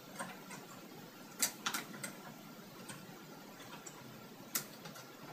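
Laptop keyboard keys and touchpad button clicking about eight times, sparse and irregular, with two louder clicks about a second and a half in and near the end, as text is selected, copied and pasted.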